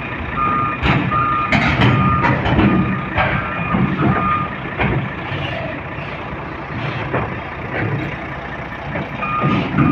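Backup alarm on heavy machinery beeping steadily, about two beeps a second, stopping about four and a half seconds in and starting again near the end. A diesel engine is running under it, with scattered sharp knocks.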